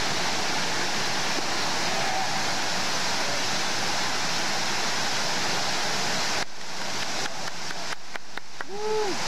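Fountain water pouring and splashing down a stepped cascade: a steady loud rush. About six and a half seconds in the rush drops and is broken by several clicks, with a short pitched sound near the end.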